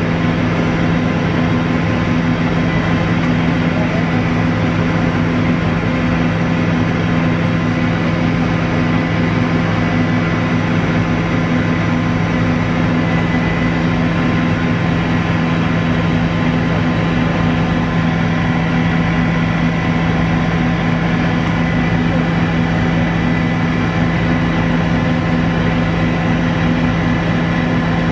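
Helicopter in flight heard from inside the cockpit: the steady drone of the turbine engine and main rotor, with several constant whining tones over a dense rushing noise.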